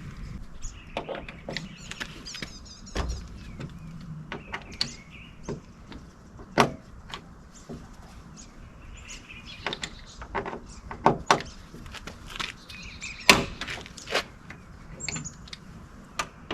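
Irregular clicks, taps and knocks of plastic and metal parts being handled as the skin comes off a Honda Talon UTV door, with a few sharper knocks in the second half. Birds chirp faintly in the background.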